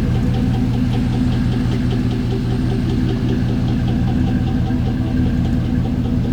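Chevrolet Trailblazer SS's LS2 6.0-litre V8 running steadily with a rapid, regular knock: the rod knock of an engine that has thrown a rod.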